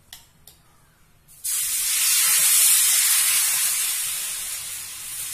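Dosa batter hitting a hot cast dosa tawa: a sudden loud sizzling hiss starts about a second and a half in, then slowly fades. A couple of faint clicks come before it.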